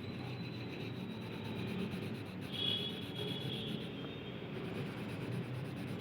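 Red colour being rubbed back and forth onto a drawing-book page while colouring in, a steady scratchy rubbing of the colouring stick on paper.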